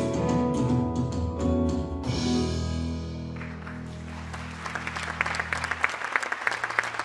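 A live band's final held chord rings out and fades, and about halfway through an audience breaks into applause that grows louder as the chord dies away.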